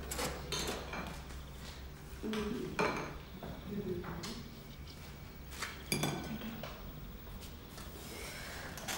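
Breakfast-table clatter: a spoon clinking in a cup and dishes knocking on the table, as scattered light clinks and knocks.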